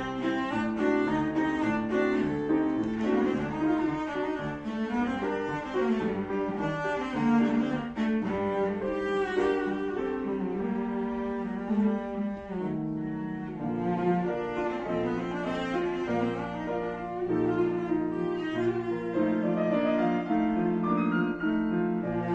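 Cello played with the bow, accompanied by a Petrof grand piano, in a continuous run of notes.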